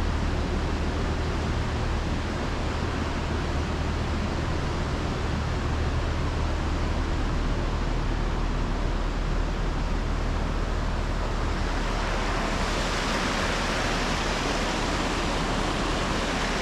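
Steady rush of running water, with a low hum underneath; about twelve seconds in the hum stops and the rush turns brighter and hissier.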